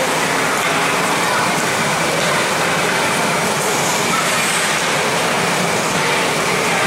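Ice rink ambience during a youth hockey game: a steady rush of noise with indistinct spectators' voices mixed in.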